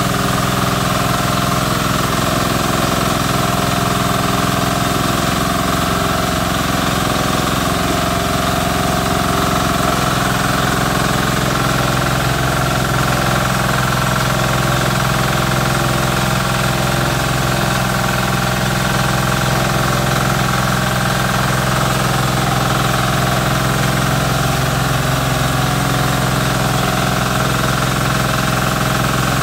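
Small petrol engine driving a rice milling machine, both running steadily at a constant speed, with no change as grain is fed into the hopper.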